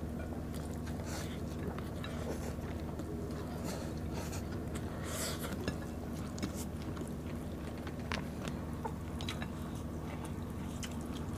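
Close-miked eating sounds: soft chewing, lip smacks and small wet clicks as people eat banana blossom salad, rice and fried milkfish by hand, over a steady low hum.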